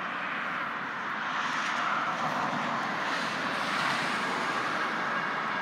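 Steady rushing noise of road traffic, swelling about two seconds in.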